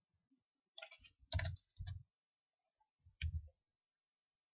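Computer keyboard and mouse clicks in a few short clusters, about a second in and again just past three seconds.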